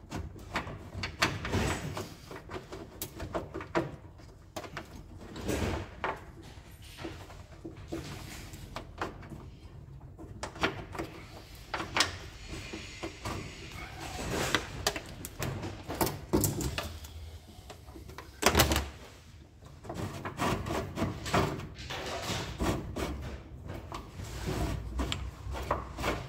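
Car wiring loom being worked down a door pillar by hand: irregular rustling of the cable and clicks and knocks of it against the bodywork, with one louder thump a little after halfway.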